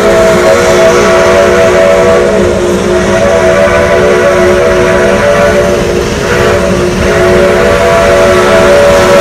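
Steam locomotive's chime whistle blowing long blasts, several notes sounding together as one chord, with short breaks between the blasts.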